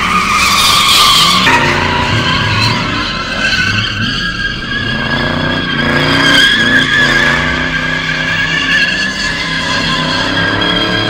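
Tyres squealing without a break as a V8 Ford Panther-platform car spins its wheels under power, with the engine running underneath. The squeal holds a nearly steady pitch and steps once about a second and a half in.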